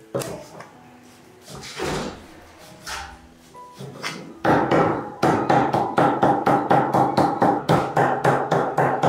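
Background music with a few scattered knocks, then from about four seconds in a fast, even run of sharp strikes on wood, about four or five a second.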